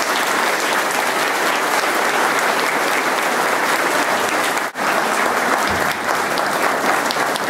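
A crowd applauding: steady, dense hand-clapping, with a momentary gap about halfway through.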